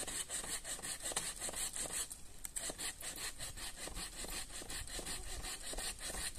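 Hand saw cutting firewood in quick, even back-and-forth strokes, several a second, with a brief pause about two seconds in.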